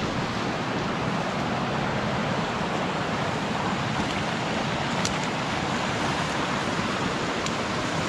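Steady rush of a waterfall's falling water, with two faint clicks about five and seven and a half seconds in.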